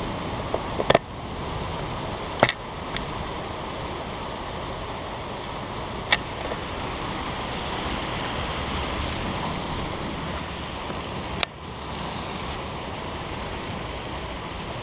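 Heavy thunderstorm rain pouring steadily, a dense even hiss, broken by four sharp short clicks or knocks spread through it.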